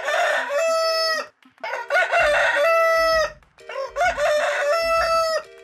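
A rooster crowing three times in a row, each crow ending in a long held note. It is a wake-up call sound effect.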